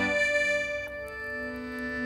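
Schwyzerörgeli (Swiss diatonic button accordion) playing slow, held reed chords in a meditative style, with the chord changing about a second in.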